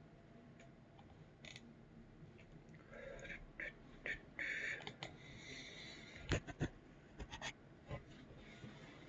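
Faint handling noises: soft rustling and hissing for a couple of seconds, then a few sharp clicks or taps.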